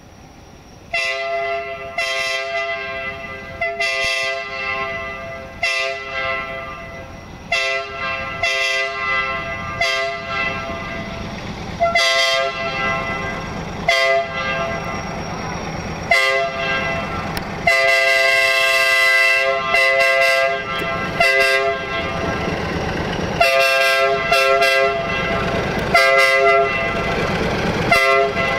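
A 060-DA (LDE2100) Sulzer diesel-electric freight locomotive sounds its horn in a long series of short blasts as it approaches, with one longer blast about two-thirds of the way through. The diesel engine's rumble grows louder underneath toward the end.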